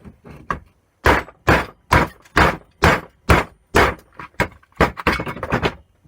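Repeated hammer blows on a metal boiler pump casting, about two a second: seven heavy strikes, then lighter, quicker knocks, driving a part out of the split casting.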